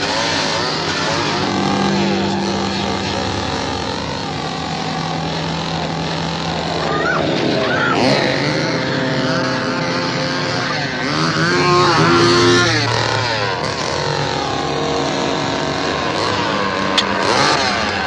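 Two-stroke chainsaw engine running and revving, its pitch rising and falling, loudest about twelve seconds in.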